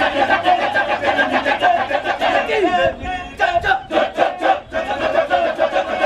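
Kecak chorus of dozens of men chanting the fast, interlocking 'cak-cak-cak' together. About halfway through it breaks into a handful of sharper, separate shouts of 'cak' before the rapid chatter picks up again.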